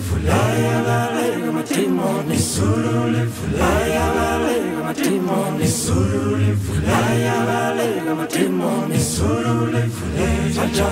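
Male a cappella group singing a gospel song in close harmony, with a deep bass line under the upper voices, in phrases a second or two long.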